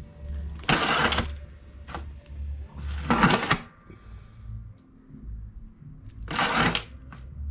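Removed Lada Niva seat creaking and squeaking as it is worked on its frame, three short noisy bursts a couple of seconds apart. The owner thinks the squeak most likely comes from the seat slides.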